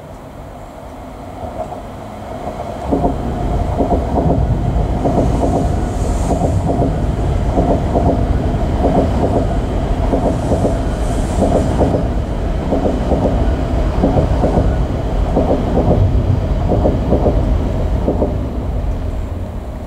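A train passing close by, its wheels clacking over rail joints in repeated quick groups. The sound swells about three seconds in, holds steady, and fades near the end.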